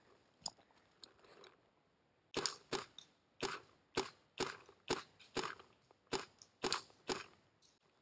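Paintball marker firing a string of about eleven shots, roughly two a second, starting a couple of seconds in.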